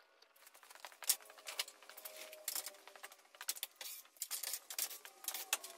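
Irregular light clicks and clatter as the front grille of a Ford pickup is unclipped and pulled off by hand.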